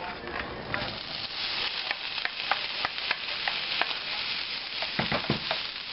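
Drained ground beef and onion tipped from a plastic colander into a hot skillet, sizzling as it lands, with a wooden spatula scraping and clicking against the pan. A few dull knocks come near the end.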